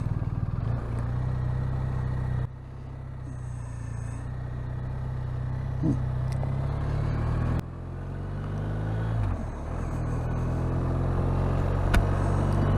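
Motorcycle engine running under way. It drops back suddenly about two and a half seconds in and again past the middle, building back up gradually each time, with a short dip and pick-up in pitch shortly after the second drop.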